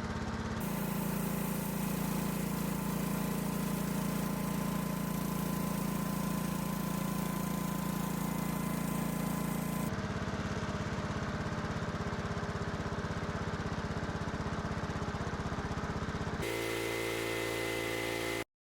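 Homemade sawmill's engine running steadily while the mill saws. The drone shifts abruptly in tone a few times and cuts off suddenly near the end.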